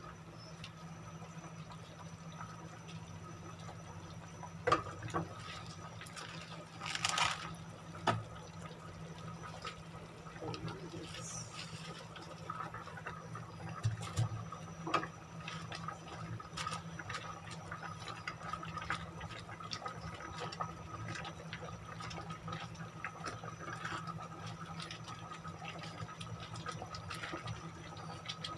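Tomato-based stew simmering and bubbling in a pot while a wooden spatula stirs it, with a few sharp knocks of the spatula against the pot and a brief louder rush of noise about seven seconds in. A steady low hum runs underneath.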